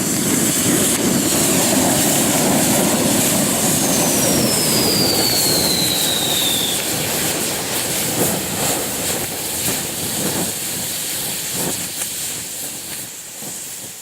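Several smoke-ball fireworks, set off in a chain through linked fuses, burning together with a loud, rough hissing sputter that dies away over the last few seconds. A thin falling whistle sounds for a few seconds partway through.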